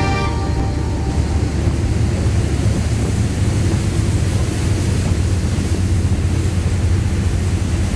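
A boat's engines run at speed with a steady low drone, mixed with wind buffeting the microphone and the rush of the wake.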